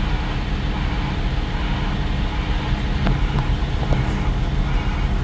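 Heavy diesel machinery running: a steady low engine rumble, heard from inside a machine's cab.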